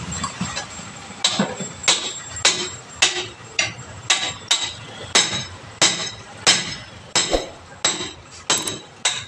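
Hammer striking a steel bar wedged between a tyre and its steel wheel rim, breaking the tyre bead loose by hand to remove the tyre. The sharp, ringing metal clinks come in a steady rhythm of about two blows a second, starting about a second in.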